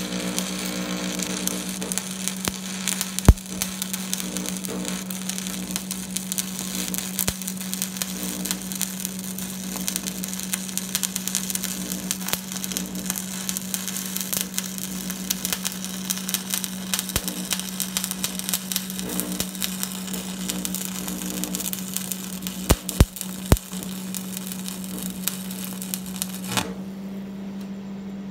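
Stick (arc) welder running a bead on steel: a steady frying crackle and sizzle of the arc with a few sharp pops, over a steady low hum. The arc breaks off suddenly near the end, leaving only the hum.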